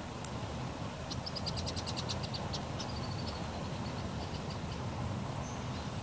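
A songbird sings a quick trill of high notes starting about a second in, ending in a short lower trill, over a steady low background rumble.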